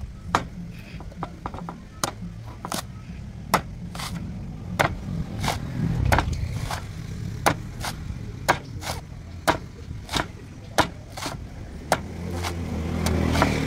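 A knife chopping young coconuts: sharp, irregular strikes, roughly one or two a second. Under them runs a low steady rumble that grows louder near the end.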